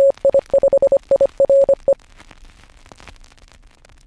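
Morse code: a single steady beep tone keyed in dits and dahs for about two seconds, the groups matching the call sign KI5IRE, followed by a faint crackle of radio static.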